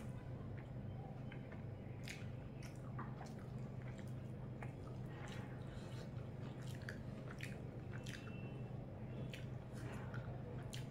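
Close-up eating sounds: wet chewing and lip smacks, with squishes of rice and chicken curry being mixed and picked apart by hand, coming as many short irregular clicks. A steady low hum runs underneath.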